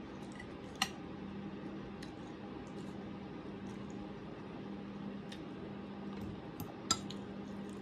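Spoon and fork scraping and clinking on a plate while eating rice, with two sharper clinks, one about a second in and one near the end, over a steady low hum.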